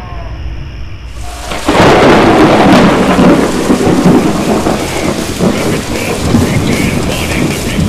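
A thunderclap breaks in suddenly about a second and a half in, then heavy rain falls steadily.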